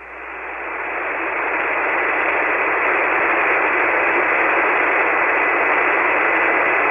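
Shortwave ham transceiver on 40-metre SSB receiving only band noise: a steady hiss, narrowed to the voice passband. It swells up over the first two seconds as the receiver's AGC recovers after the last signal, and a faint steady whistle runs through it.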